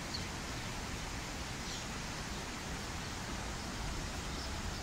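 Steady outdoor rushing noise, with a couple of faint high chirps from house sparrows.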